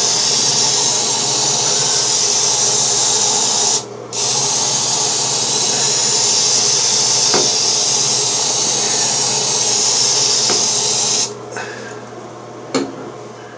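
Aerosol can of Raid ant spray hissing in two long sprays: about four seconds, then after a brief break about seven seconds more. A light knock near the end.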